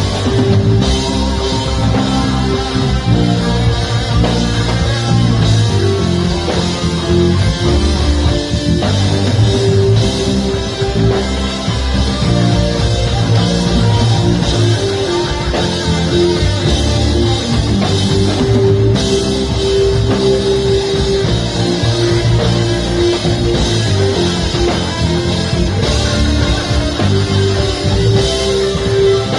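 Rock band playing live, electric guitar over bass and drum kit.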